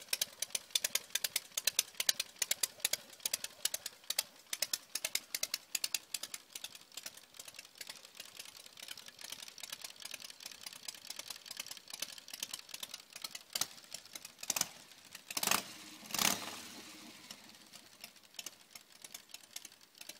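V-twin engine of a custom Harley-Davidson-style chopper idling with a fast, uneven ticking beat. About three quarters of the way through come two short, louder bursts, and then the sound tails off.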